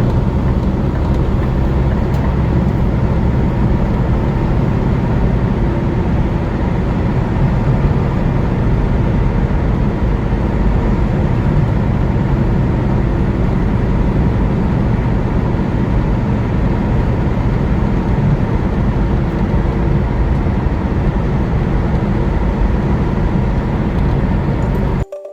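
Steady drone of a vehicle driving on a highway: engine and road noise, unchanging until it cuts off abruptly near the end.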